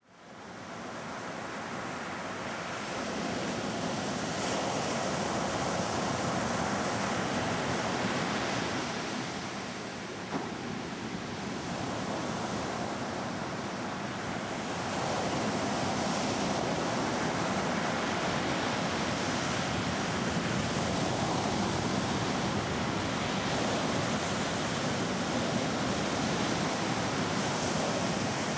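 Ocean surf washing onto a beach, a steady rush of breaking waves that fades in at the start and grows louder about halfway through, with one brief click about ten seconds in.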